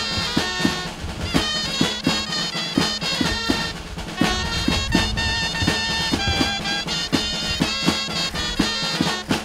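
A Castilian jota played live on dulzainas, a reedy double-reed shawm melody over a steady drum beat, with castanets clicking.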